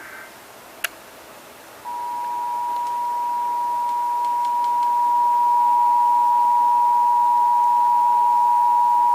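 Emergency Alert System attention signal: a loud, steady two-tone alarm (853 and 960 Hz sounded together) that begins about two seconds in and holds through the end, marking the start of a required monthly test. Before it comes a sharp click and the faint tail of a SAME data burst.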